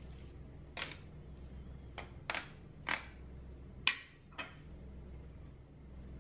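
Kitchen handling noises: about six brief scrapes and knocks as a spoon, a plastic bag of flour and ingredient jars and bottles are picked up and moved, the loudest a little before four seconds in, over a faint low hum.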